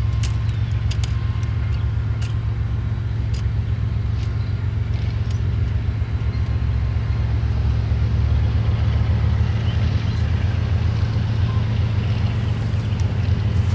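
Diesel locomotive engine running with a steady low rumble, with a few sharp metallic clicks in the first few seconds.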